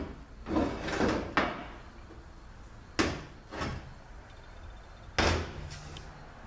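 Metal transmission pump parts being handled and set down: a couple of scraping clunks in the first second and a half, then sharp knocks about three seconds in and just past five seconds, each followed by a lighter one.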